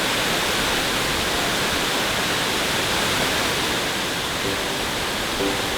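Large waterfall plunging, a loud, steady, unbroken rush of falling water.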